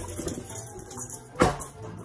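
Music with a jingling, tambourine-like shake, and one sharp knock about one and a half seconds in.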